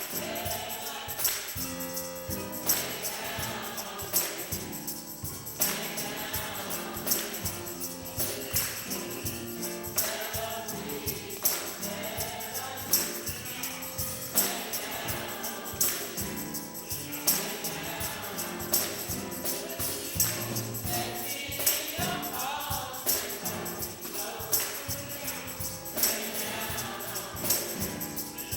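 Gospel music: a choir singing over a steady beat, with a tambourine jingling on the accents.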